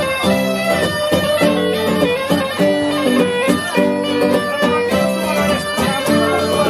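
Cretan askomandoura (bagpipe) playing a lively melody in held, steady notes, with laouto (long-necked lute) strummed in a steady rhythm beneath it.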